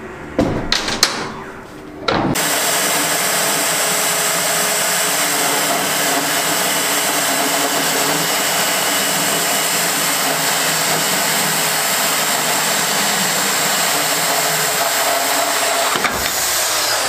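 A few knocks, then about two seconds in a cordless circular saw starts up and cuts steadily through a rusty round steel bar, blade grinding on metal without a break.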